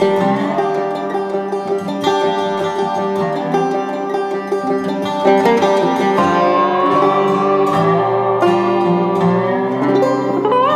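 Background music of plucked string instruments playing a flowing melody at a steady level.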